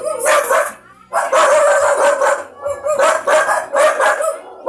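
Kitten meowing loudly over and over, in short pitched calls about three a second, with a brief pause about a second in.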